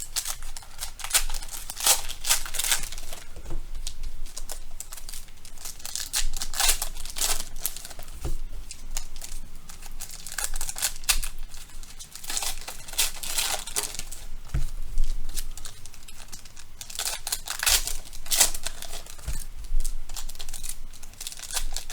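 Foil baseball card pack wrappers being torn open and crinkled by hand, in irregular bouts of crackling.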